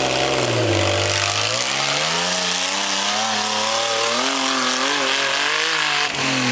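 Engine of a Suzuki off-road buggy revving hard under load as it climbs a steep bank, its pitch repeatedly dipping and climbing.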